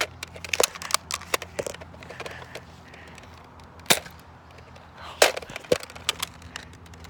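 Nerf foam-dart blasters firing and being worked: a string of sharp, irregular pops and clicks, the loudest about four seconds in and again just past five seconds.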